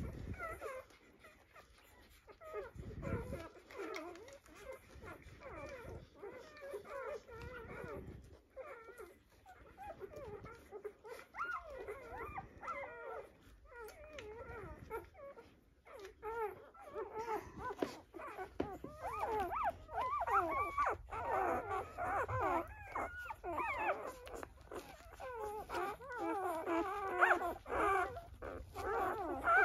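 A litter of five-day-old Portuguese Water Dog puppies squeaking and whimpering as they nurse, with many thin, wavering calls overlapping. The calls grow busier and louder in the second half.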